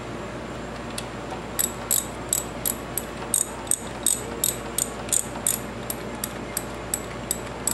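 Small socket ratchet clicking steadily, about three clicks a second, starting about a second and a half in, as it runs down the camshaft cap bolts to snug them before they are torqued.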